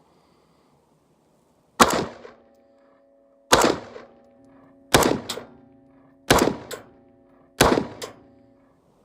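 Five single shots from a Daniel Defense Mk18 AR pistol firing 5.56 rounds, spaced about a second and a half apart. Each report is followed a fraction of a second later by a fainter second crack or echo.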